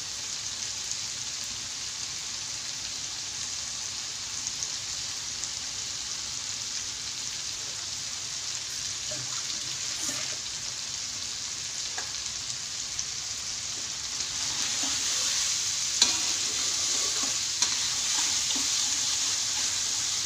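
Blended chili paste sizzling in a wok, a steady frying hiss that grows louder about two-thirds of the way through. A few sharp clicks of a metal spatula stirring against the wok.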